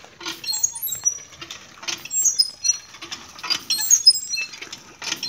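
Rustling and scuffing in dry straw and dirt as a puppy moves about, in repeated short bursts, with many short, high-pitched chirps throughout.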